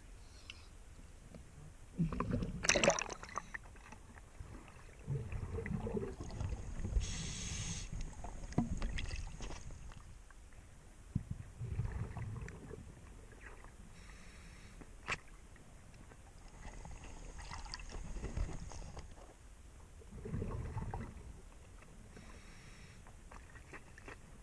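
Scuba diver breathing underwater: hissing inhalations through the regulator and rumbling bursts of exhaled bubbles every few seconds, with a few sharp clicks of metal.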